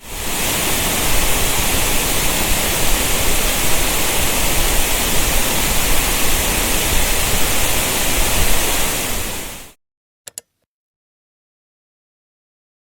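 Rushing mountain-stream water, a loud steady hiss that cuts off abruptly about three-quarters of the way through, followed by two faint clicks.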